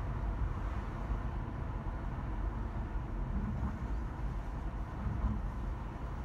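Car driving: a steady low road and tyre rumble with engine noise, even throughout with no sudden events.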